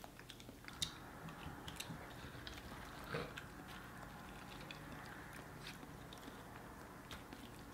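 Faint chewing and eating sounds, with scattered small clicks of a plastic spoon and fingers working food in paper and plastic containers.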